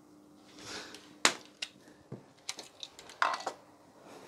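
Irregular sharp clicks and light clattering knocks from hardware being handled, about a dozen over a few seconds, the loudest a little over a second in.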